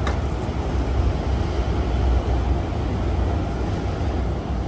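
Steady low vehicle rumble with an even hiss over it.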